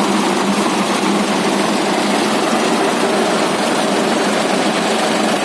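Concrete mixer's engine running steadily, a constant machine hum with no breaks or changes.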